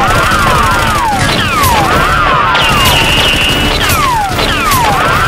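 Dubbed-in gunfire sound effects: a rapid run of shots mixed with ricochet whines, several of them overlapping, each whine sweeping sharply down in pitch or arcing up and down.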